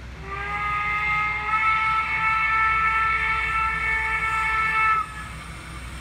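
Steam whistle from an HO-scale model steam locomotive's sound system: one long held blast of several tones at once, lasting about four and a half seconds and cutting off suddenly, over the steady low rumble of the running train.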